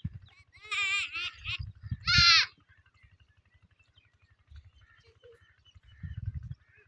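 Goat bleating twice in quick succession with a quavering call, the second bleat louder. A faint low, regular throb runs underneath.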